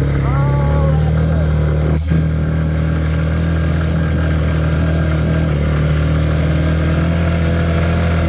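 Four-wheeler (ATV) engine running steadily under way, with a brief dip and click about two seconds in.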